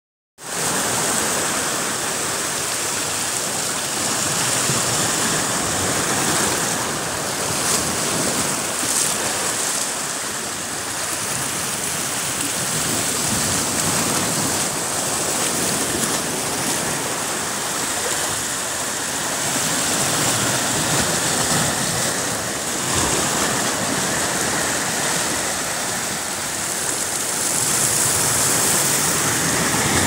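Sea waves washing over and around shoreline rocks: a continuous rush of splashing, foaming water that swells and eases.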